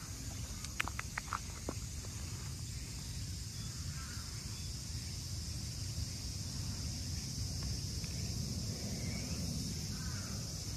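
Steady high buzzing of cicadas, with a low outdoor rumble beneath and a quick run of sharp clicks about a second in.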